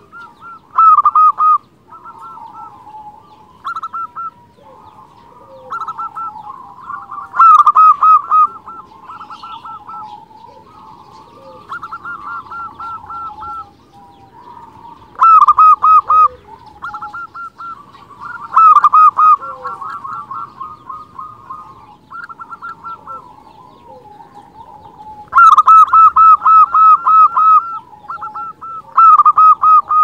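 Local zebra dove (perkutut) singing: bursts of rapid, rolling cooing notes every few seconds, some loud and some softer.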